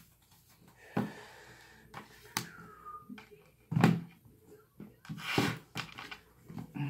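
Tarot cards being handled: scattered soft taps and knocks, the loudest about four seconds in, with a brief falling squeak near the middle.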